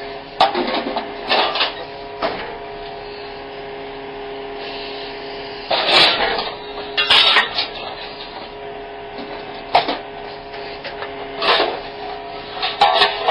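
Small excavator-mounted hydraulic scrap shear working a pile of scrap metal. A steady mechanical whine from the machine runs underneath, with irregular clanks and scrapes of metal scrap being gripped and dragged. The loudest clanks come about six and seven seconds in and again near the end.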